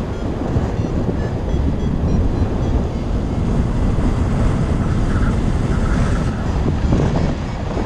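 Strong wind buffeting the microphone of a camera carried by a paraglider pilot in flight: a steady low rumble of rushing air.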